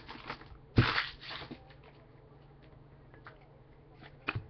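Panini Contenders basketball trading cards being handled in a stack by hand. There is a sharp snap about a second in, then soft card-on-card scuffing, and a couple of light clicks near the end.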